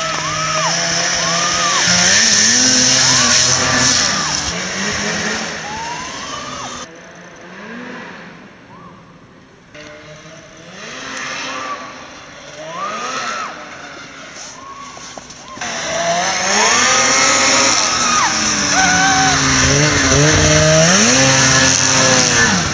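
Two-stroke snowmobile engines revving up and down again and again as the sleds ride a snowy trail; the sound fades well down around the middle as a sled moves off into the trees, then comes back loud and close for the last several seconds.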